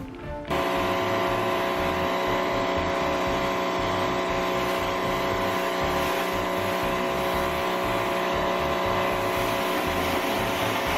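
Greenworks 1600 PSI electric pressure washer kicking on suddenly about half a second in, its motor and pump then running steadily under load with a constant whine.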